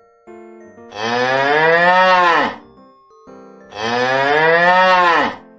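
A cow mooing twice, two long calls each falling in pitch at the end, with soft tinkling children's music between them.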